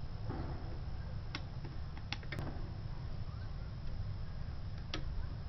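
A few small, sharp metal clicks and a brief rustle as a bicycle-spoke rod and a hand tool are handled on a homemade tin-can Stirling engine, over a steady low hum.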